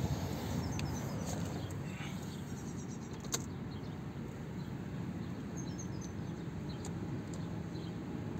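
Steady low background rumble with faint bird chirps now and then, and a single sharp click a little over three seconds in.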